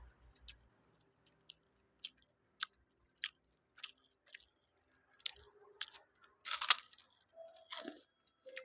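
Close-up chewing of fried rice mixed with noodles: wet mouth clicks and small crunches about every half second, with one louder crunch a little past the middle.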